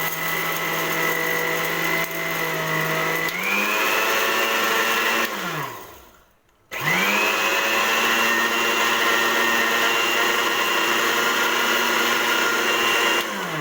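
Electric kitchen blender grinding dry roasted eggshells to powder: the motor runs steadily, jumps to a higher speed about three seconds in, winds down and stops for a moment, then starts again and runs until it winds down near the end.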